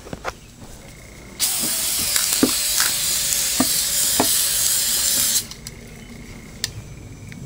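Ironlak aerosol spray paint can spraying in one continuous hiss of about four seconds, starting about a second and a half in and cutting off suddenly, with a few light clicks around it.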